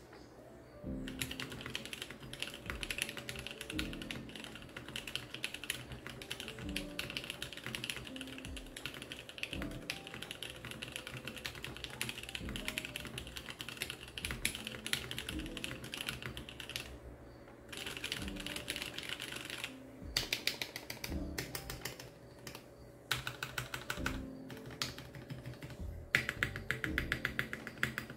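Typing on a Mode Sonnet mechanical keyboard with Alpaca linear switches in a polycarbonate plate, stack-mounted without foam, under DCX keycaps: fast, steady keystrokes starting about a second in, with a few short pauses, over quiet background music.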